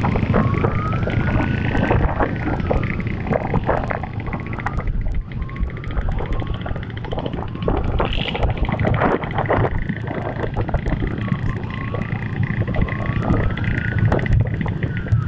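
Motorcycle engines running on the move, with wind buffeting the microphone and a wailing tone that rises and falls over and over, like a siren.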